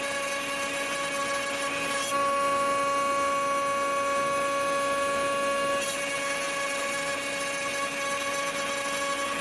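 CNC router spindle running with a steady high whine as it carves walnut, over a hiss of cutting noise. The whine gets louder and brighter about two seconds in and eases back a little near six seconds.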